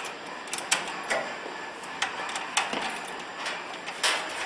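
Scattered metallic clicks and taps of a hand tool tightening cable terminal screws inside an induction heater's cabinet, with a louder run of clatter starting near the end.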